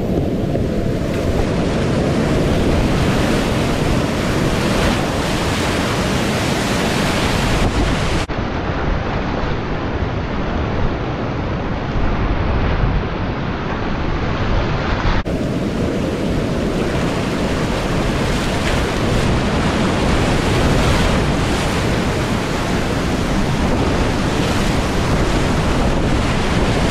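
Loud, steady rush of whitewater rapids heard from a kayak running them, with water and spray buffeting the microphone.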